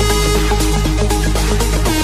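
Electronic dance-style background music with a steady beat, held bass notes and a synth melody.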